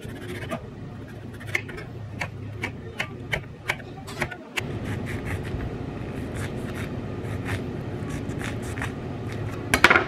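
Kitchen knife slicing through radishes onto a wooden cutting board, a crisp tap with each stroke, about two or three a second. About four and a half seconds in, the sound changes to a low steady hum with fainter knife sounds as a knife cuts into an avocado. Near the end comes one short, loud clatter.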